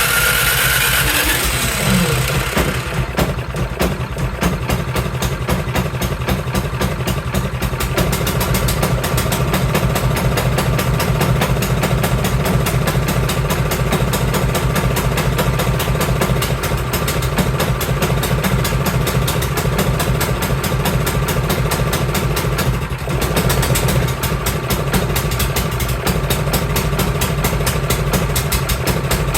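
Cub Cadet 524 snowblower engine starting on its electric starter and catching at once, speeding up over the first couple of seconds, then running steadily with a fast, even firing beat. It is running with the choke stuck on, which is why the snowblower runs rough.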